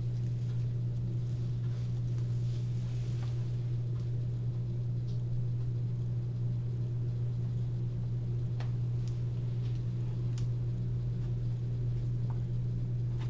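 A steady low hum with a few faint light clicks and rubs from hands working at the glider's wingtip.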